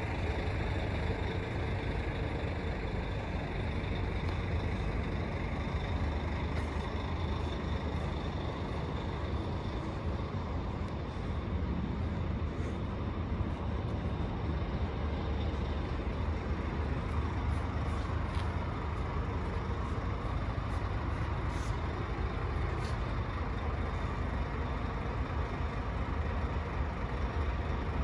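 Scania K440 coach's 13-litre six-cylinder diesel engine idling steadily, a low, even rumble.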